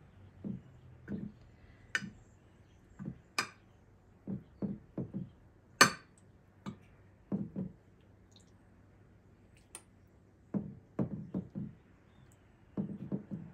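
Metal fork clinking and tapping against a glass baking dish as chicken strips are turned in flour, with soft dull knocks between the sharper clinks. The strikes come irregularly, about a dozen of them, the loudest about six seconds in.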